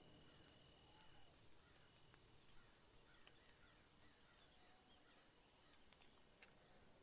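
Near silence: faint room hiss with a faint high steady tone that stops about a second in, and a few soft ticks.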